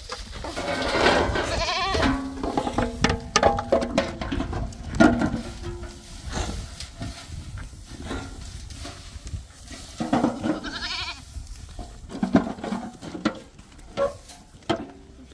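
Goats bleating: several wavering calls, the loudest about a second in and again near ten seconds, with scattered knocks between them.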